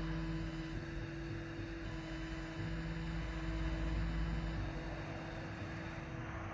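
CNC laser machine running with a steady hum of motors and fans, its pitch shifting a few times as the machine changes moves.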